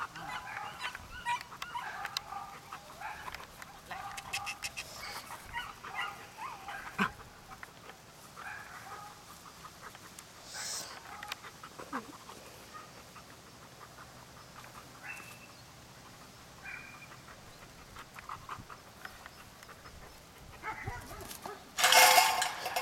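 Puppy whining and yipping in short, high calls, frequent at first and sparser later, with a louder noisy burst near the end.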